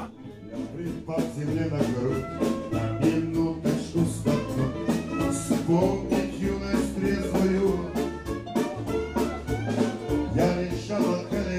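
Live band playing an upbeat, cheerful song: a man singing over acoustic guitars and a steady beat.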